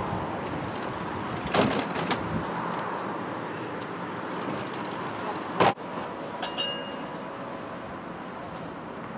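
Steady hum of trams standing at a stop. A clatter about a second and a half in, as the tram's folding doors open, a sharp knock past halfway, and a brief high metallic ringing just after.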